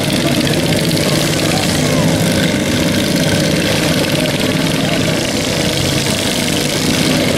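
Several riding lawn mower engines running together in a steady, overlapping drone as the mowers drive around a muddy arena.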